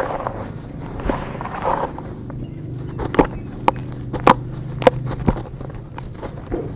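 Chunks of dirt being crushed: soft crumbling at first, then a run of about five sharp cracks roughly half a second apart as the chunks snap apart.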